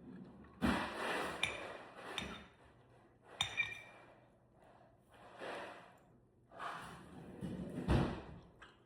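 Cutlery clinking against plates during a meal, with a few sharp ringing clinks among short bursts of rustling noise.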